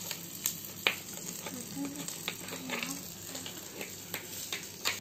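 A miniature pan of onion-tomato masala sizzling faintly as it cooks, with several sharp clinks of a small spoon against a tiny steel bowl as boiled potato is mashed; the loudest clink comes a little under a second in.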